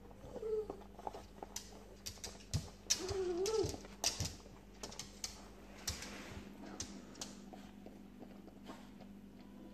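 A dog whimpering twice: a short whine about half a second in and a longer wavering whine about three seconds in. Many scattered sharp, wet clicks and smacks around it.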